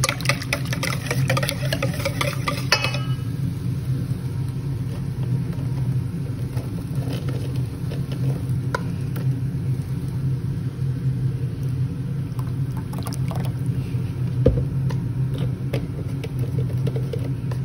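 A wire whisk beats rapidly against a stainless steel bowl of cream sauce, then stops about three seconds in. After that a steady low hum continues, with a few faint clinks.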